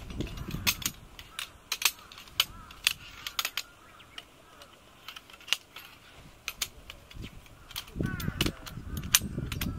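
Irregular sharp clicks and clacks of metal tent pole sections being handled and fitted together. Rustling of the polycotton tent canvas near the start and again near the end.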